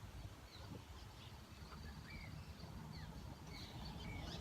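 Wind rumbling on the microphone, with a few short, faint bird chirps scattered through.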